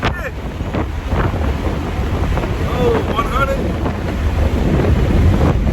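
Steady road and wind rumble inside the cabin of a car moving at speed, with faint voices around the middle.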